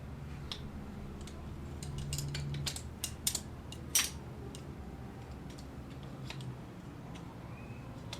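Small clicks and clinks of hard objects being handled, thickest in the middle and sharpest about four seconds in, over a steady low hum.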